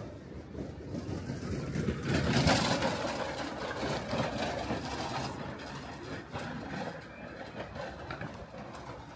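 A motor passing close by. It swells to its loudest about two and a half seconds in, then fades away slowly.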